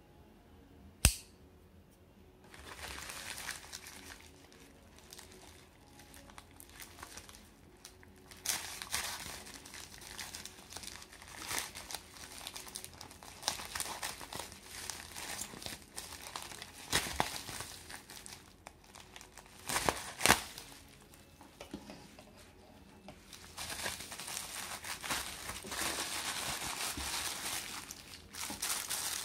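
A thin plastic courier mailer bag crinkling and tearing as it is cut and pulled open by hand, with a sharp click about a second in as a folding knife snaps open. Near the end, the thin plastic wrap around a glue tube crinkles as it is handled.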